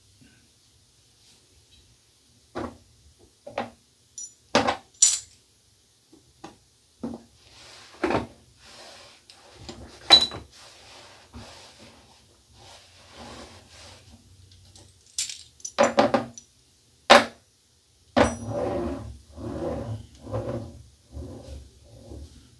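Shaving gear and hard items being handled and set down at a bathroom sink: a run of scattered sharp clicks, clinks and knocks, with a towel being handled near the end.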